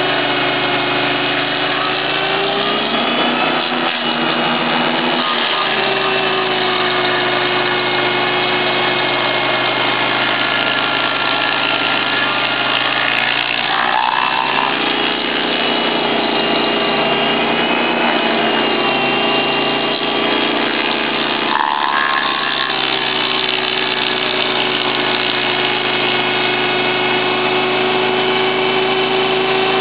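Stump grinder's engine running hard as its toothed cutter wheel grinds through a tree stump. The steady tone drops in pitch three times as the wheel bites in and the engine is loaded down, then climbs back.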